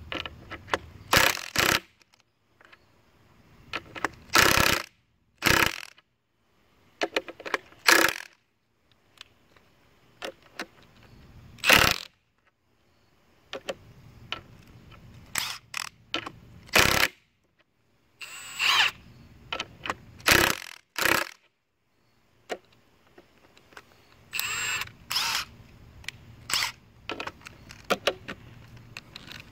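Cordless impact wrenches, a Makita XWT08 and a Milwaukee M18 Fuel 2767, hammering lag bolts into a wooden beam in short trigger bursts. There are about a dozen bursts, each under a second, with pauses between them.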